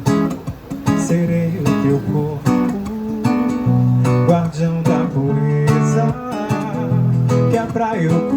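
Acoustic guitar strummed in a steady rhythm, playing live music without singing.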